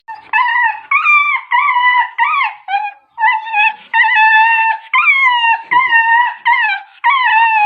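Dog whining: a rapid run of high-pitched whines, nearly two a second, many falling in pitch.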